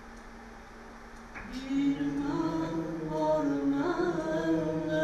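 A low steady hum over a quiet room, then about a second and a half in, slow singing starts with long held notes.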